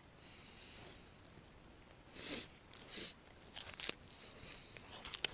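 A person's faint, short breaths, three in quick succession starting a little past two seconds in, with a small click near the end.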